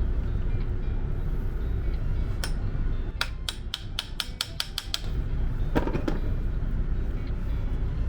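Sharp metal taps: a single tap, then a quick run of about ten taps about three seconds in, then a couple of knocks, over a steady low hum.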